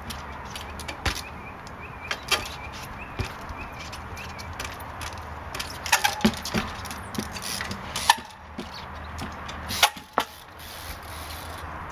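A trials bike's tyres and frame landing and hopping on wooden pallets and boards: a run of sharp knocks and thuds, clustered around six seconds in, with the loudest near eight seconds and two more near ten seconds.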